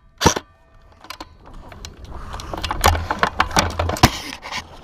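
Scattered sharp clicks and knocks over a low rumble, typical of an airsoft player's gear and movement. One loud click comes just after the start and another about four seconds in, with about a second of near quiet in between.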